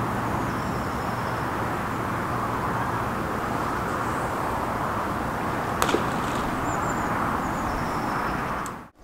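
Steady hiss of distant road traffic, with a few faint high bird chirps and one sharp click a little before six seconds in.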